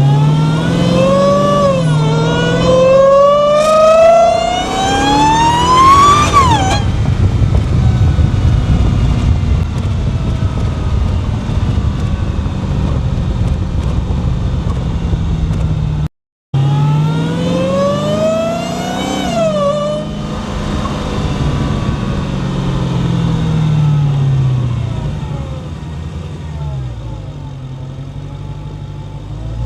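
Dodge Charger Hellcat's supercharged 6.2-litre Hemi V8 under hard acceleration, the supercharger whine climbing steeply in pitch with an upshift about two seconds in, then cutting off sharply as the throttle lifts around seven seconds. After a lower stretch and a brief dropout just past halfway, a second shorter pull rises and falls away, and the car settles into a quieter cruise.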